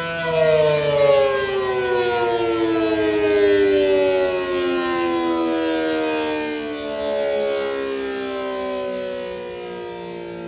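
ACA Allertor 125 outdoor warning siren sounding its two-tone chord (9- and 12-port rotor), held steady at first, then about a second in starting a slow, even glide down in pitch that is still falling at the end.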